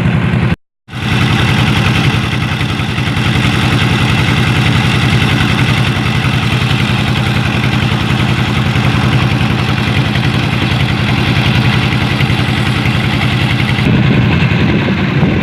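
Vehicle engine running steadily, with an even low pulsing throb; the sound drops out completely for a moment just under a second in.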